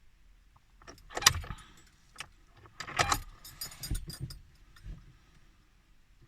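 Keys jangling with sharp metallic clicks in two short bouts, about a second in and again around three seconds in, with no engine running or cranking.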